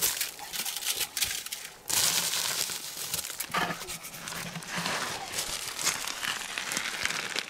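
Crinkly rustling and scraping as hands handle the layered salted fish in a plastic barrel.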